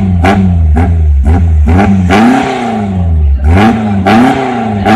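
Suzuki Katana's petrol engine revved repeatedly while standing still, heard at the tailpipe: quick throttle blips about two a second, then longer revs that climb and fall back.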